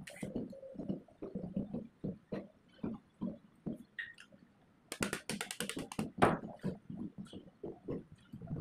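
Handling noises from lacing a rewound motor stator's copper end windings with cotton tape: irregular dull knocks and rustles of the tape and coils, with a quick run of sharp scratchy clicks about five seconds in.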